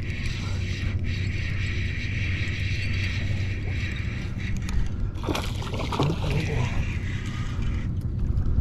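Spinning reel being cranked in a steady retrieve, its gears whirring until just before the end, over a low steady hum and water sloshing around a kayak.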